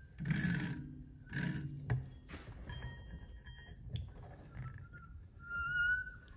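Metal handling noises from a clutch spring compressor tool holding a scooter clutch and pulley: two short scraping rustles, then a couple of sharp clicks. A short wavering whistle-like note comes near the end.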